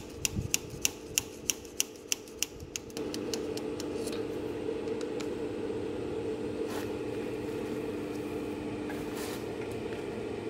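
A run of sharp metallic clicks, about three a second, stops under three seconds in. Then a steady fan hum runs on, with a couple of faint taps.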